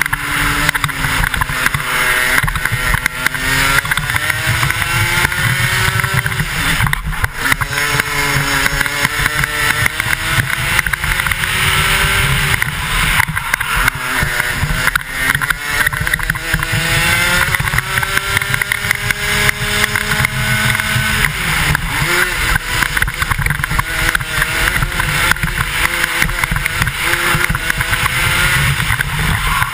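125cc two-stroke kart engine pulling hard through a lap, its pitch climbing steadily along each straight and dropping sharply as the driver lifts for a corner, four times over.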